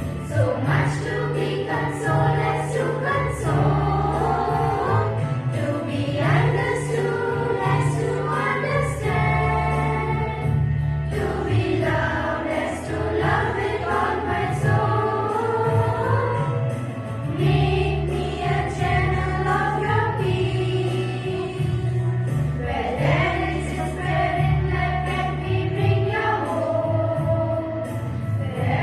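A choir singing a Christian hymn over a steady instrumental accompaniment.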